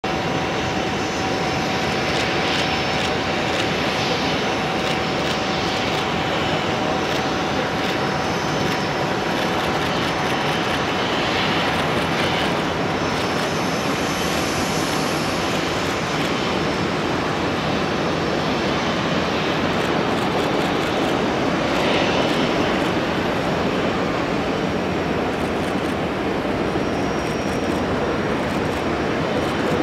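Airbus A350's Rolls-Royce Trent XWB jet engines on landing: steady jet noise with a thin whine that fades out about halfway through as the airliner touches down and rolls out.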